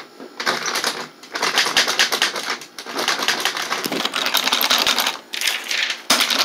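A sticking door being jiggled and rattled at its latch: a fast run of clicks and knocks in several stretches with short breaks. The door won't open properly.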